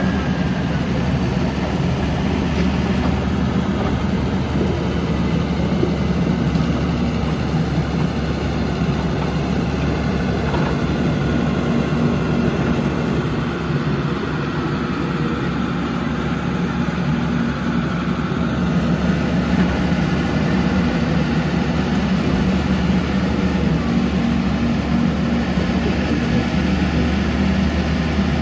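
Shantui motor grader's diesel engine running steadily with a low, even drone while the grader levels gravel.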